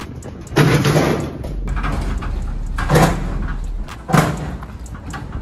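Heavy metal cabinet of a snack vending machine knocking and rattling as it is tilted and moved on a hand truck: three loud knocks, the first about a second long, the others shorter, about two and three seconds later.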